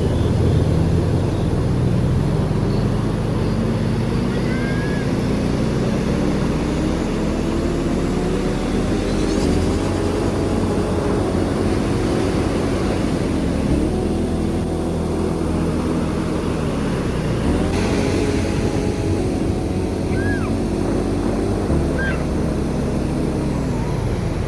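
A motor vehicle's engine running under way, its pitch climbing steadily, then dropping and climbing again several times, as when shifting up through gears.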